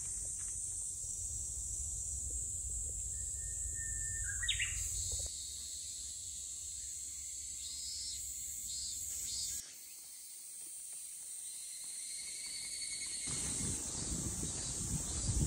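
Insects trilling steadily in woodland, with a short bird call about four seconds in that holds one note and then sweeps upward. Near the end a low rumbling noise comes in.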